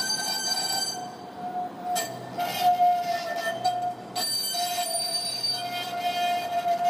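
Metrolink M5000 tram's wheels squealing on a curve of street track: a steady high-pitched squeal with overtones that wavers and breaks off briefly about two and four seconds in, with a couple of sharp knocks from the wheels on the rails.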